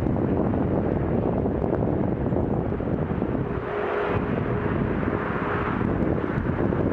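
Motorway traffic crossing a viaduct: a steady rush of cars and trucks heard from a distance, with wind rumbling on the microphone. About halfway through, a passing vehicle swells a little louder, with a faint steady hum for a couple of seconds.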